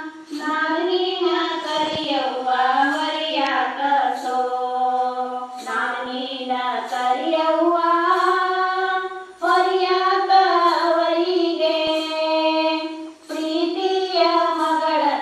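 Women singing a Kannada shobana wedding folk song together in long, held phrases, with short pauses between phrases about nine and thirteen seconds in.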